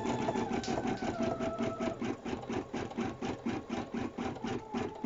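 Brother Innovis 880E embroidery machine stitching out a design: a fast, even rhythm of needle strokes over a steady motor hum.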